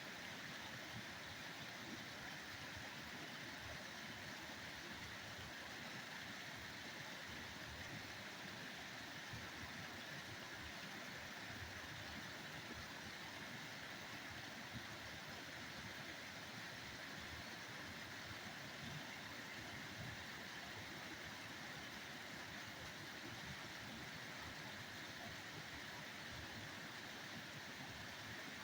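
Steady rushing of river water, an even hiss with no breaks or changes.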